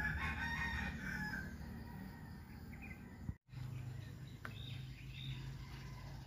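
A rooster crows once, about a second and a half long, over a steady low background hum; the sound drops out briefly about three seconds in.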